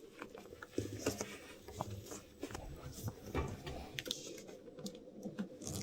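Faint, scattered light clicks and small knocks of handling, over a low steady hum.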